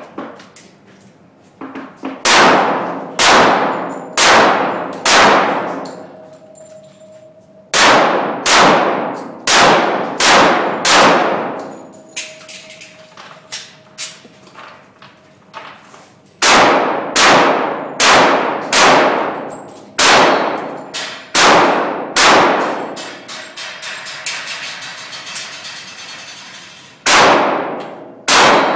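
A short-barrelled Kimber 1911 pistol in .45 ACP fired in rapid strings of shots, with short pauses between strings. Each shot rings and echoes in the indoor range.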